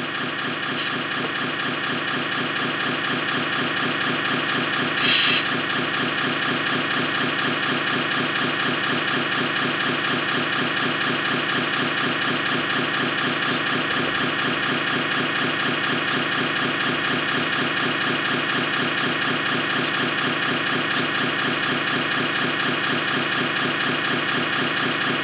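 Electronic engine-sound unit of a model Scania truck playing a steady diesel idle through its small speaker, with a brief hiss about five seconds in.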